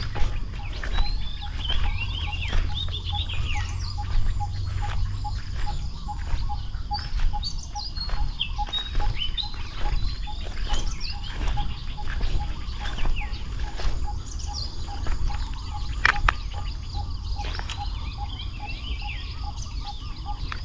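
Wild birds chirping in short falling notes, over a steady pip repeating two or three times a second and a low rumble.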